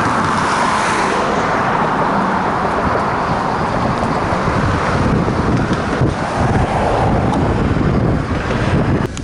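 Steady road traffic with cars passing close by, and wind buffeting the microphone.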